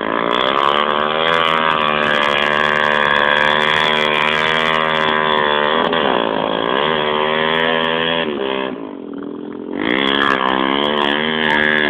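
Single-cylinder four-stroke Honda trail motorcycle engine revving hard and steadily, the revs dipping and climbing back about six seconds in. Near nine seconds it eases off briefly, then revs up again.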